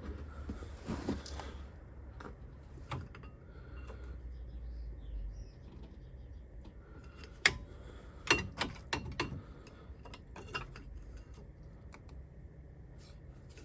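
Scattered clicks and knocks of hand tools and metal parts being handled at a car's disc brake caliper, with a cluster of sharper knocks about halfway through.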